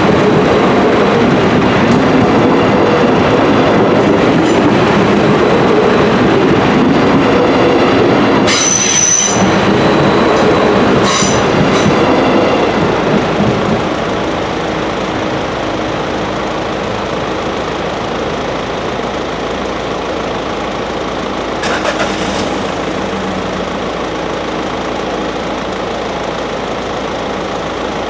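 A Trenord ATR 115 diesel railcar running past over the level crossing, with loud rail and wheel noise and short high wheel squeals about nine and eleven seconds in. The train noise falls away about thirteen seconds in, leaving a quieter steady background.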